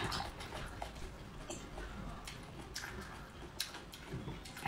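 A breathy puff of breath at the start and another at the end, typical of someone blowing out after very spicy food, with scattered faint clicks between.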